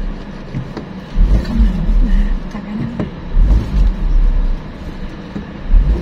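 Sedan driving slowly along a rough dirt track: engine and tyre noise with an uneven low rumble that swells and fades as the car rolls over the bumpy surface.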